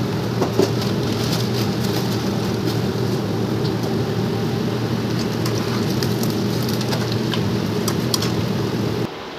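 Tempering sizzling and crackling in hot oil in a kadai on a gas burner, with many small pops over a steady low hum. It cuts off abruptly near the end.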